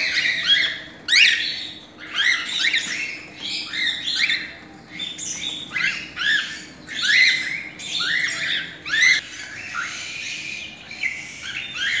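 Several cockatiels calling, a busy stream of short, shrill chirps and squawks, several a second and overlapping.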